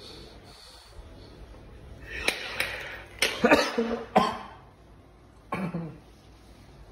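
A man coughing: a breathy burst, then a quick run of several coughs, and one more cough near the end. He is recovering from COVID and his lungs are still weak.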